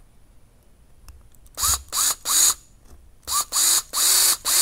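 Cordless electric screwdriver driving a small screw into an RC crawler's chassis skid plate in short bursts, the motor whine rising in pitch as each burst spins up: three quick bursts, a short pause, then four more close together.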